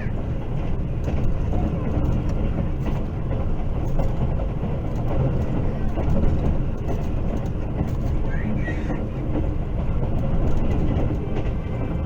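Train running along the rails: a steady low rumble with faint wheel clicks.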